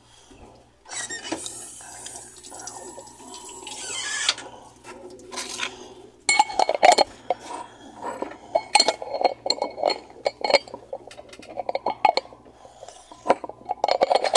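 About three seconds of hissing starting a second in, then a quick run of sharp clinks and knocks of hard objects, some of them ringing briefly.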